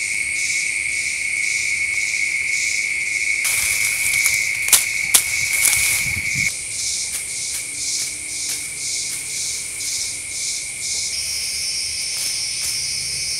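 Loud insect chorus: a steady high buzz that stops about six seconds in, over high chirps pulsing a few times a second. Around four to six seconds in, a brief rustle of hands in dry leaf litter with two sharp clicks.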